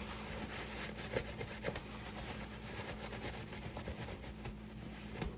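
Quick, continuous rubbing and wiping strokes over a pistol's optic adapter plate as it is cleaned off, with a few small ticks.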